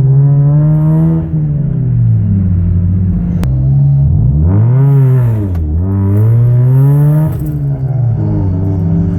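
2004 Mazda RX-8's 6-port Renesis rotary engine, loud through a custom axle-back straight-pipe exhaust, being revved. A light rev drops away after about a second. Two sharper rev blips follow in quick succession in the middle, then it settles back to a steady idle near the end.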